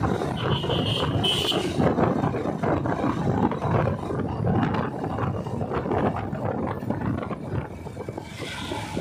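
Motorcycle riding along a street: wind buffeting the phone's microphone over the running engine, with a brief high tone about a second in.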